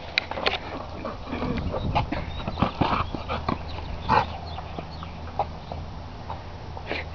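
A dog's paws scuffling and a big rubber tennis-style ball knocking and rolling over concrete and gravel as the dog nudges it along, with footsteps crunching. Irregular knocks and scrapes, busiest in the first half, with the loudest knock about four seconds in.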